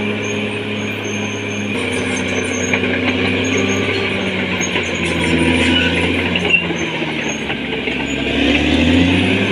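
Caterpillar D6R XL bulldozer's diesel engine running under load, its pitch shifting as the load changes and rising near the end, with one sharp click about two-thirds of the way through.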